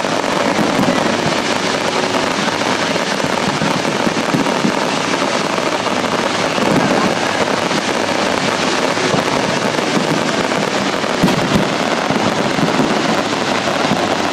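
Consumer fireworks going off close by: a steady, dense hiss and crackle of firing sparks, with one sharper pop about eleven seconds in.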